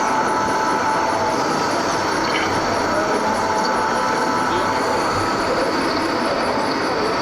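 Steady whirring of RC model construction machines' electric drives and gearing, with a few constant whining tones over an even mechanical hum.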